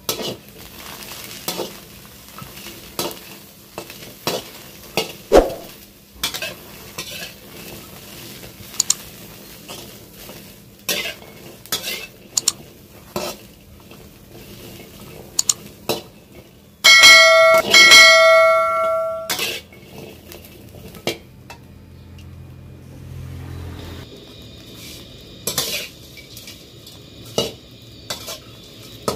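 Metal spatula scraping and clanking against a steel wok, stirring roasting chilies, garlic and pea eggplants, with irregular sharp clicks. About 17 seconds in there is a loud ringing metallic tone for about two and a half seconds.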